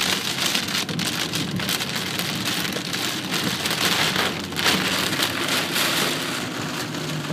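Heavy rain falling on a car's roof and windshield, heard from inside the cabin as a dense, steady patter of drops.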